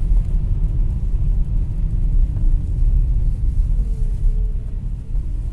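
Volkswagen Touareg engine running with a steady low hum, plus a faint higher tone that wavers about four seconds in. The owner cannot yet tell whether the hum comes from a belt idler roller or the power steering pump, and says it varies with revs and fades once the engine warms up.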